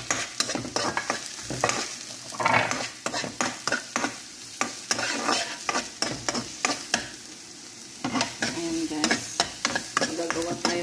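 Chopped onions sizzling in a little oil in a non-stick wok, stirred with a spatula that scrapes and taps against the pan again and again. The stirring eases off briefly about seven seconds in.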